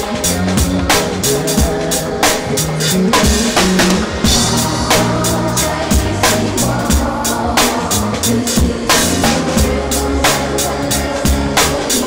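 Band playing an R&B groove, with a drum kit keeping a steady beat over bass.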